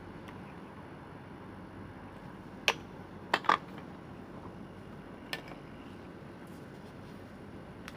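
A few sharp, separate clicks over a steady low hiss: one, then a quick double click a moment later, then a fainter one near the middle.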